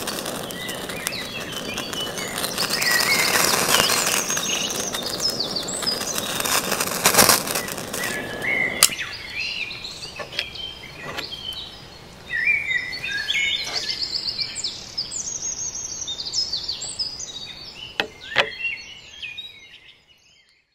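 Songbirds chirping and singing over a crackling, hissing noise. The noise cuts off suddenly about nine seconds in, and after that the birds are heard alone, with a few sharp clicks. The sound fades out near the end.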